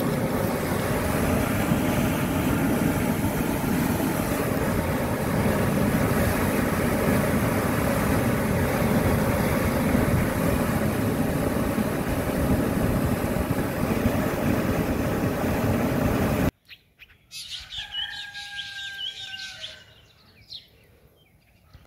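Whitewater rushing steadily down a narrow concrete channel. It cuts off abruptly about three-quarters of the way in, leaving a quiet outdoor background with a few short bird calls and chirps.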